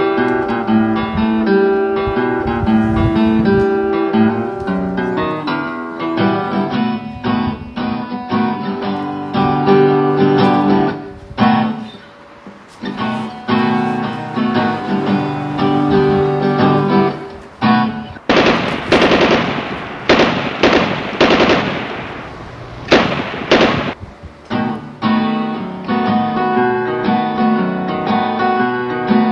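Acoustic guitar music, broken about 18 seconds in by several loud bursts of automatic gunfire over about six seconds, after which the guitar picks up again.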